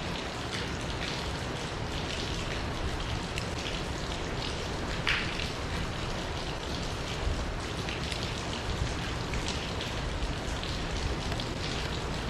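Small wood campfire in a compact fire stand crackling, with scattered sharp pops over a steady hiss; one louder pop about five seconds in.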